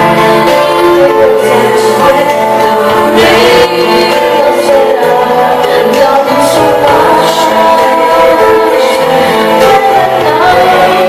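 Music with a woman singing held, sustained notes over instrumental accompaniment.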